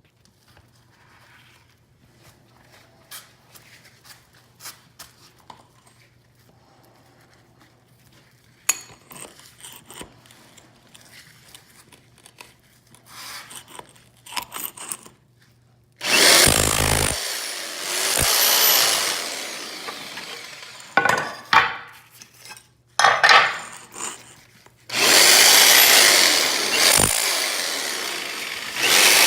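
Scattered light clicks and handling noises over a faint low hum, then, about sixteen seconds in, a VonHaus 10-amp SDS-Plus rotary hammer in chisel mode starts up in several loud bursts of a few seconds each, the longest near the end, chipping floor tile and its thinset loose.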